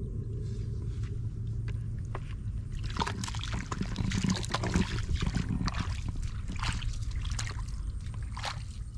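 Shallow water splashing and sloshing in crackly strokes that pick up about three seconds in, over a steady low rumble.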